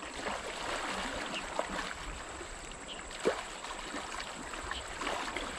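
River water sloshing softly around someone wading waist-deep, with a few small splashes.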